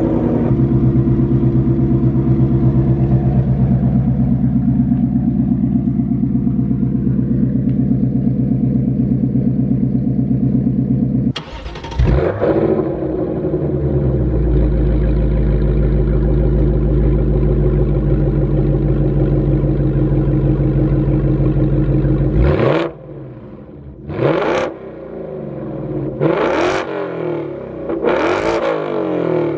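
2024 Ford Mustang GT's 5.0-litre V8 through a Corsa Extreme active cat-back exhaust with a double H-pipe, running a steady cold-start high idle. About twelve seconds in the warm engine is started and settles into a deep idle. In the last seven seconds it is revved four times in quick, sharp blips.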